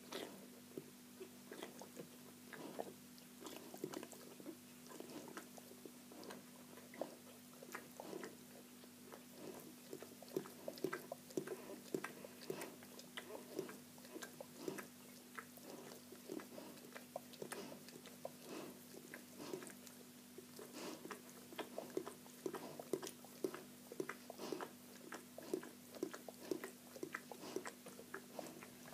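Wet mouth sounds of a Greater Swiss Mountain Dog mother licking her newborn puppies while they nurse: soft, irregular smacks and clicks, several a second, over a steady low hum.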